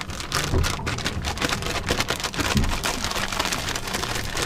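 Zip-top plastic bag being shaken with conch and batter inside: quick, continuous crinkling and rustling of the plastic as the pieces are tossed to coat them.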